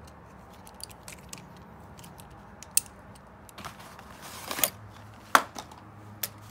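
Scattered metallic clicks and clinks of a folding bike multi-tool handled at the handlebar stem bolts, with a brief rustle around four seconds in and a sharp clack, the loudest sound, a little after five seconds.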